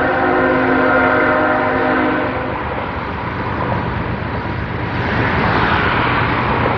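Train horn sounding one held multi-tone chord that cuts off about two seconds in, over a steady rushing noise that carries on afterwards.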